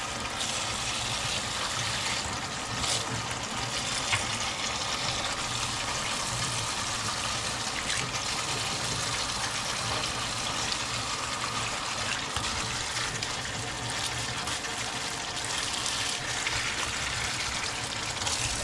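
Kitchen tap running steadily into a stainless steel sink, splashing over grape leaves being rinsed by hand in a plastic colander. A few light knocks, the sharpest about four seconds in.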